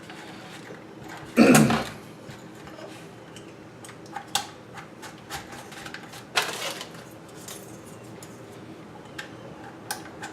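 Hard plastic drone parts being handled: a loud knock about a second and a half in, then scattered light clicks and a short rattle.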